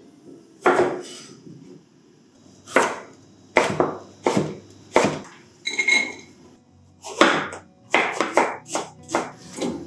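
Chef's knife chopping food on a wooden cutting board: single strokes spaced a second or so apart, then a quicker run of chops near the end.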